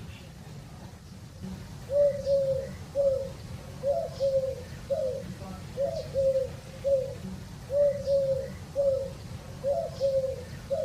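Dove cooing: a run of short, soft coos, roughly one a second and sometimes in pairs, beginning about two seconds in over a steady low rumble.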